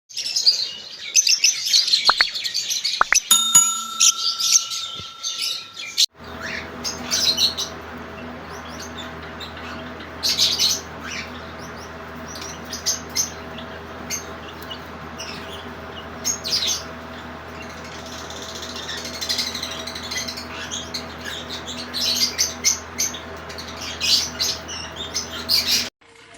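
Java sparrows chirping, a dense run of quick high chirps. About six seconds in, the sound cuts to a steady low hum with sparser chirps over it.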